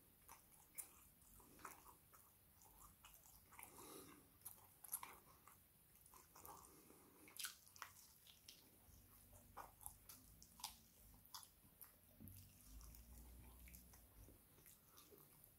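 Faint close-up chewing and biting of barbecue chicken wings: a person tearing meat off the bone and chewing, with many short, irregular mouth clicks.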